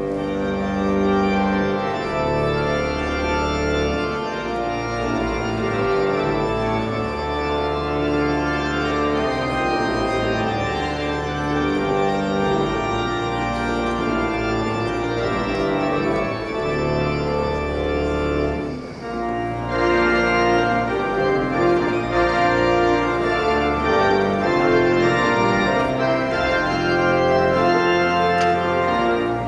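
Organ playing a processional: held chords with the bass note changing every couple of seconds, and a brief break about nineteen seconds in.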